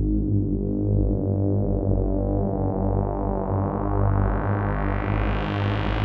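Dreadbox Nymphes 6-voice analog polysynth holding a sustained low chord through an Eventide Rose analog delay pedal, its filter slowly opening so the sound grows steadily brighter, brightest near the end.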